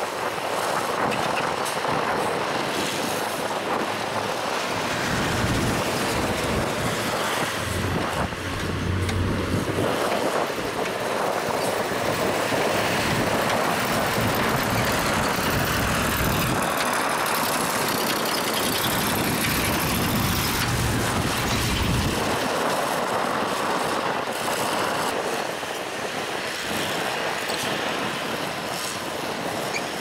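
Heavy diesel earthmoving machinery running at a dirt fill site, over a steady noisy hiss. A low engine rumble builds about five seconds in, swells twice, and drops away after about twenty-two seconds.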